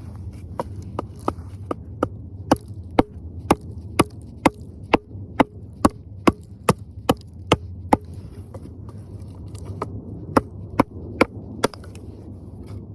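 Sharp knocks struck about two a second in a steady rhythm, pausing for a couple of seconds about eight seconds in, then four more, over a steady low rumble of strong wind.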